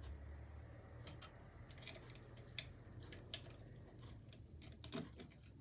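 A few light, scattered clicks and taps of small metal parts: the levers of a dismantled five-lever mortice lock being handled and lifted out, over a faint low hum.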